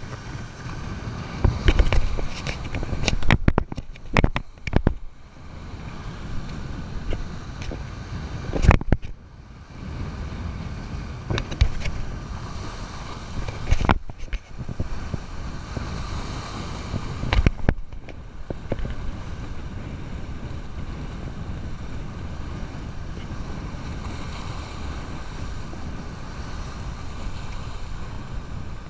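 Surf breaking and washing over the jetty's boulders, with strong wind buffeting the microphone. Several loud bumps and gusts stand out in the first two-thirds before the sound settles into a steady rush.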